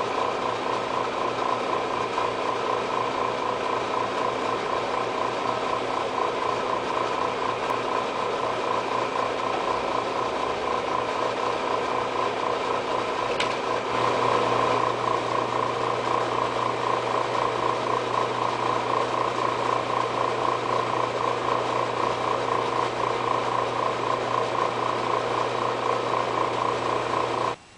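An electric machine runs steadily with a mains hum and a fast, even pulsing whir. It gets a little louder about halfway through, just after a single click.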